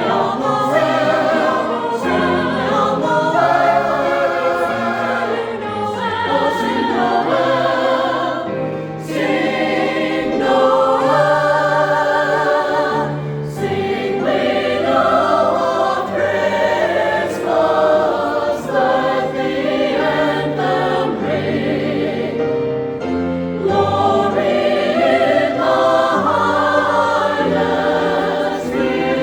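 Choir singing in several parts, the voices held with vibrato and sustained low notes beneath.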